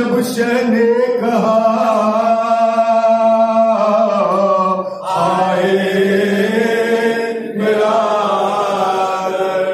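Men chanting a noha, a Shia mourning lament, led into a microphone, in long held phrases with short pauses for breath about five seconds in and again near eight seconds.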